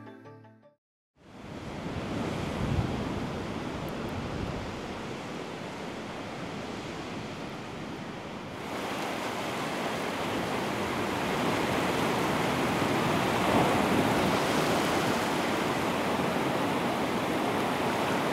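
Ocean surf breaking and washing up a beach: a steady rush of waves that starts about a second in, after the last notes of music fade, and grows louder about halfway through.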